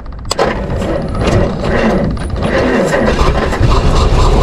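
779-cubic-inch Waukesha straight-six engine turning over on its starter, a loud rough mechanical clatter with gear chatter that kicks in sharply just after the start.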